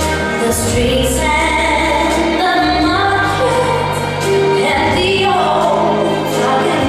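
Slow waltz music with a singing voice carrying the melody over a steady bass line.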